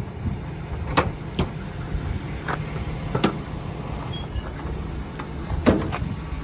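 About five sharp knocks and clicks spread through the few seconds, the last one the loudest, over a steady low rumble.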